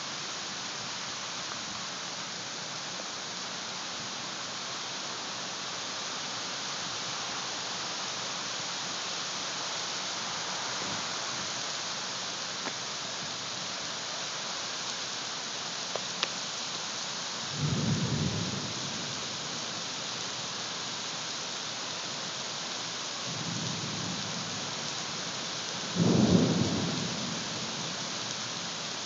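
Thunderstorm: rain pours down steadily while thunder rumbles three times, once past the middle, once more faintly shortly after, and loudest near the end.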